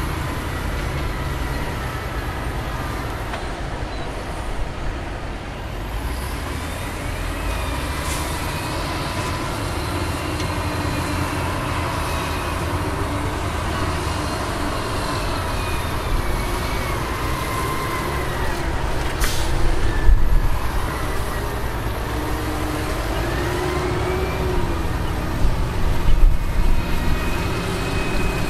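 Heavy diesel earthmoving machinery and dump trucks working: a steady low engine rumble with high squeals that drift up and down. About two-thirds of the way in comes a brief sharp hiss, like a truck's air brake, followed by the loudest knock, with a few more knocks near the end.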